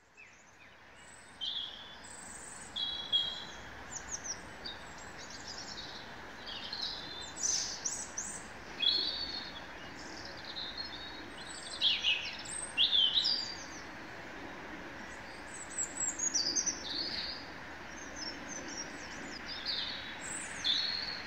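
Several songbirds singing in a spring woodland, with many short, overlapping phrases over a steady background hiss. The sound fades in at the start.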